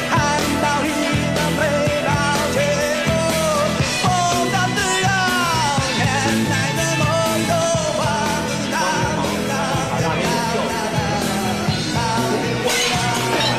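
Rock music from a live performance: a singer's drawn-out vocal line that slides in pitch, over a full band with steady drums. The band gets brighter near the end, likely cymbals.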